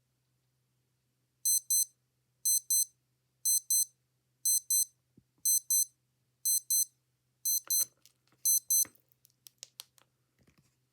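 Digital watch alarm beeping: high-pitched double beeps, one pair a second, eight pairs in all, then it stops and a few faint clicks follow.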